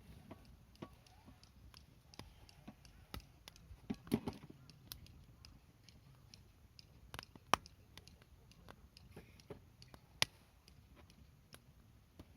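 Wood fire crackling in a folding fire pit: irregular small snaps over a low rumble, with a few louder pops about four, seven and a half, and ten seconds in.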